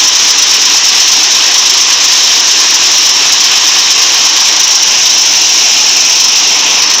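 Rice threshing machine running: a loud, steady rushing hiss with no breaks.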